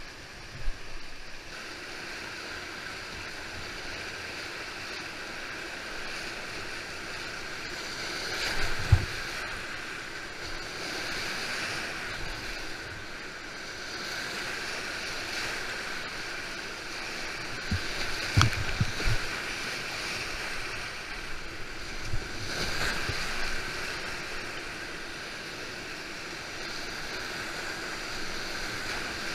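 Whitewater rapids at high flow (16.5 cumecs) rushing steadily around a kayak, with a few short low thumps about nine seconds in and again around eighteen seconds in.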